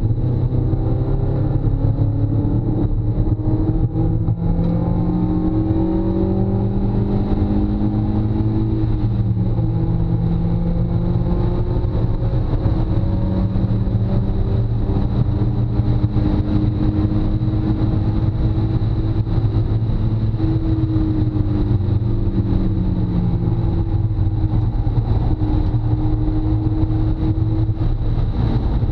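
Car engine heard from inside the cabin under hard acceleration, its pitch climbing, dropping at a gear change about nine seconds in, and climbing again. It falls off as the car slows a little past the twenty-second mark and then holds steady, over constant road and wind noise.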